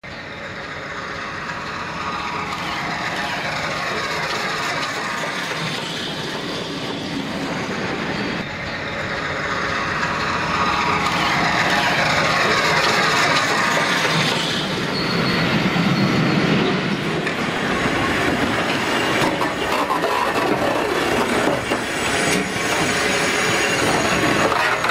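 GWR Castle Class 4-6-0 steam locomotive 5043 and its coaches running along the track, steel wheels rolling over the rail with clickety-clack, growing louder as the train approaches. A ringing whine from the wheels glides in pitch, twice.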